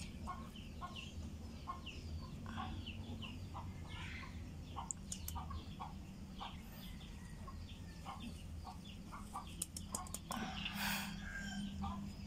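Chickens clucking and peeping: many short calls over a steady low hum, with a brief rustle about ten and a half seconds in.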